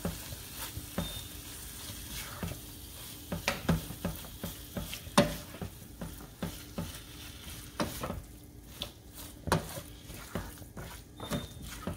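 Raw ground chicken being stirred into frying masala with a plastic spatula in a nonstick pan: irregular scrapes and taps of the spatula on the pan over a low sizzle, with a few louder knocks.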